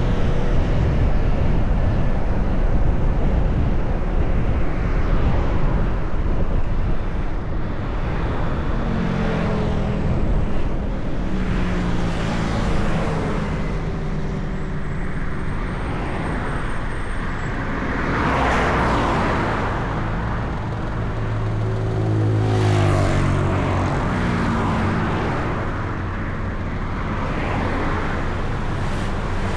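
A car driving in traffic: steady engine and road rumble, with the engine note climbing twice as it speeds up. There are louder rushing swells of passing traffic about two-thirds of the way through.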